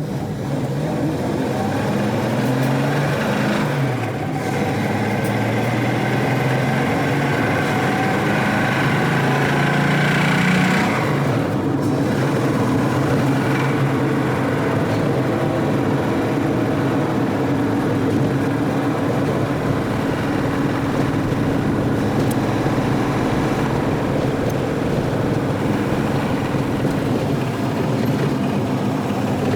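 Volvo 164's B30 straight-six engine revving up twice, its pitch climbing and dropping back about four seconds in and again at about eleven seconds, then running steadily.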